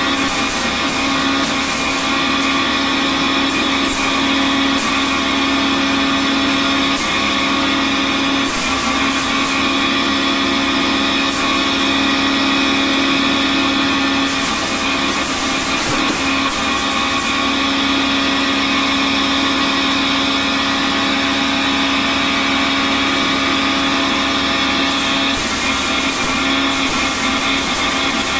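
Belt-driven flour mill running under load as it grinds dried turmeric fingers: a loud, steady mechanical drone with a constant hum and scattered clicks from the pieces in the grinding chamber.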